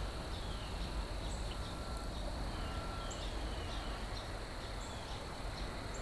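Evening outdoor ambience: a steady high insect trill, with faint short falling chirps every second or so and a low rumble of wind on the microphone.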